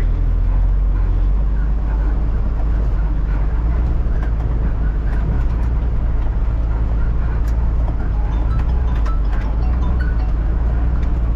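Truck engine running as the truck drives slowly over a rough, rocky dirt track, heard from inside the cab: a steady low drone with scattered faint clicks and knocks.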